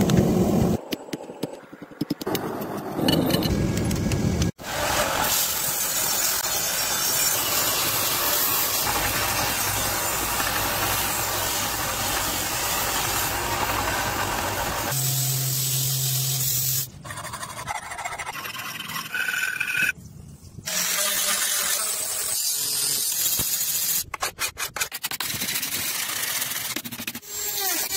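Metalworking sounds on a steel sword blade. A hammer strikes red-hot steel on an anvil near the start, then a belt sander grinds the blade for a long steady stretch with its motor humming. Near the end come short rasping strokes of hand filing along the blade.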